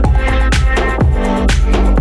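Electronic background music with a steady beat, about two beats a second, over held chords.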